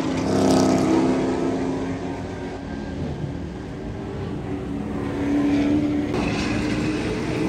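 Racing engines running as vehicles go round the track, the sound swelling as one passes about half a second in, fading, then swelling again as another comes by later.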